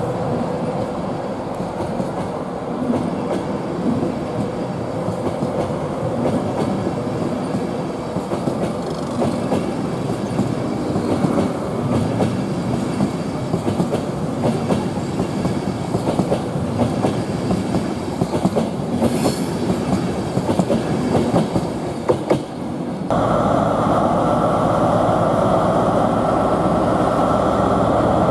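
InterCity 225 Mark 4 coaches rolling past a platform, wheels clicking and rumbling over the rail joints. About 23 s in this switches abruptly to the louder, steady running of a Class 43 HST diesel power car as it pulls in.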